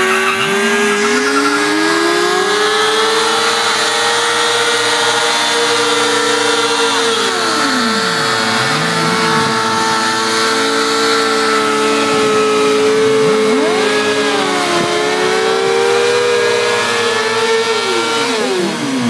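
Sportbike engine held at a steady high rev during a burnout, the rear tyre spinning against the pavement. A few other engine notes swoop down in pitch and climb back up.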